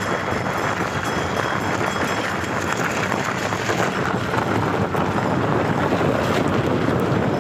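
Ox-drawn flatbed cart on rubber tyres rolling along a dirt road: a steady noise of the cart moving, mixed with wind buffeting the microphone, a little louder in the second half.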